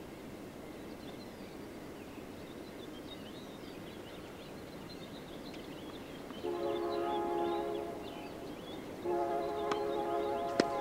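A horn sounds two long, chord-like blasts of about a second and a half each, starting about six and nine seconds in. Near the end, a tennis racket hits a ball with one sharp pop.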